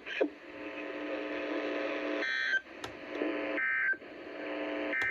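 Three short, buzzy digital data bursts about 1.4 s apart from a NOAA Weather Radio broadcast: the Emergency Alert System end-of-message tones that close a warning. A steady electronic hum sits between the bursts.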